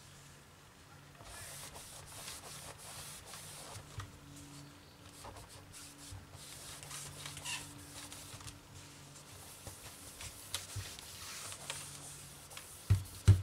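Microfiber cloth rubbing over a laptop's LCD screen, a faint soft swishing with small clicks, then a couple of low knocks near the end.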